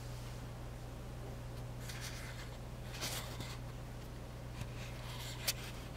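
Steady low electrical hum, with a few brief scratchy rustles and one sharp click near the end.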